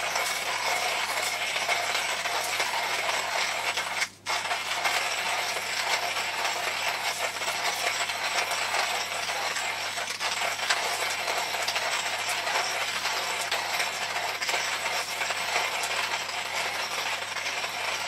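Rhinowares hand coffee grinder cranked at an even speed, its burrs steadily crunching through whole coffee beans at the finest grind setting. A momentary break comes about four seconds in.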